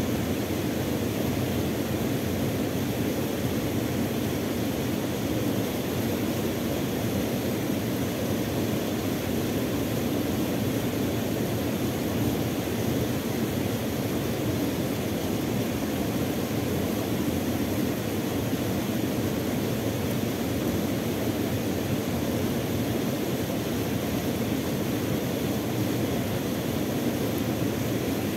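Steady rush of a small waterfall spilling into a creek pool: an even noise that does not change or break.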